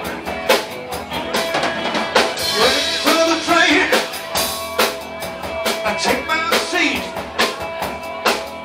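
Live rock band playing an instrumental passage: an electric guitar lead with bending notes over a steady drum-kit beat and bass guitar.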